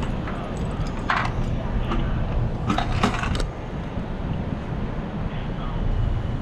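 Steady rumble of wind and road noise from a moving motorcycle, with a few short rattling clicks about a second in and again around three seconds in.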